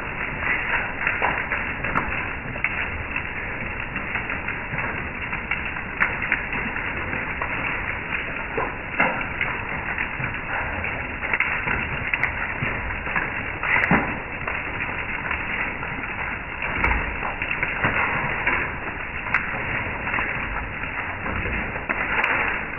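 Hail falling on a wooden deck and patio furniture: a dense, steady patter of small impacts, with sharper individual hits standing out every few seconds.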